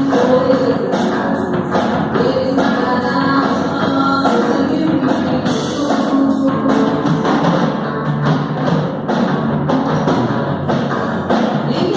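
Worship band rehearsing a song live: drum kit keeping a steady beat under instruments and singing voices.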